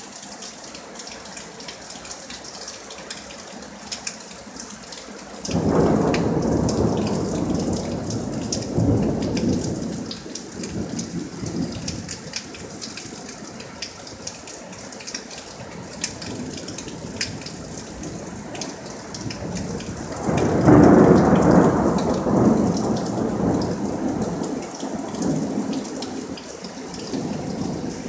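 Thunder rolling twice over steady rain: a long rumble starts about five seconds in and dies away, then a second, louder one about twenty seconds in.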